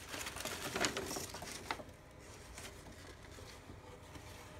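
Paper rustling and crinkling as paintings done on paper bags are handled, a run of short crackles in the first two seconds, then only a low room hum.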